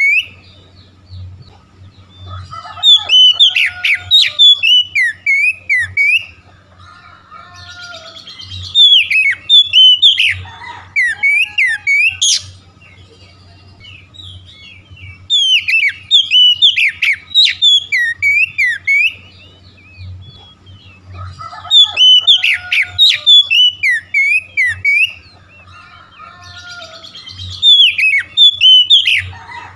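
Oriental magpie-robin in full song: loud, rich, varied whistled phrases with fast pitch sweeps, delivered in bursts of three to four seconds with short pauses between.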